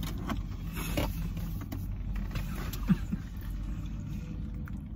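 Steady low rumble of a car heard from inside its cabin, with scattered light clicks and rustles as food and packaging are handled, and a brief low voice sound about three seconds in.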